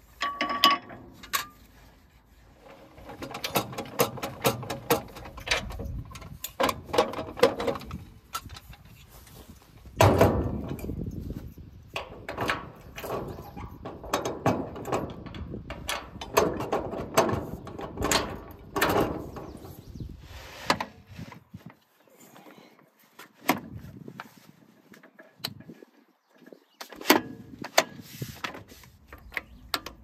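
Metal clanks, knocks and rattles from hooking up and readying a round baler: a steel hitch pin dropped through the tongue, panels and latches on the baler, and hydraulic hose couplers being handled. A sharp clank with a brief ring about half a second in, then irregular knocks and rattles. Another hard knock about ten seconds in.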